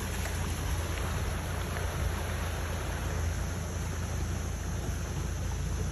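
Steady low rumble of a distant off-road vehicle's engine under an even hiss of outdoor noise.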